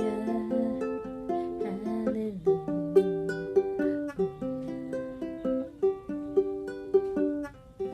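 Tenor ukulele played solo: a melody of plucked, ringing notes, with the last note dying away near the end.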